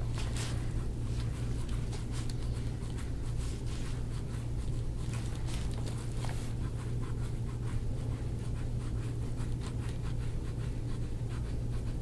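Gua sha scraping tool stroked hard and fast over the skin of the back and shoulder, a scratchy rubbing in many short, irregular strokes, over a steady low hum.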